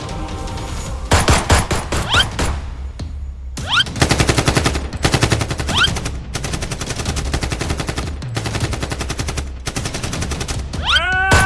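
Several bursts of rapid automatic gunfire, each a second or two long with short pauses between, with a few short rising chirps among them. Near the end a rising tone levels off into a steady held chord.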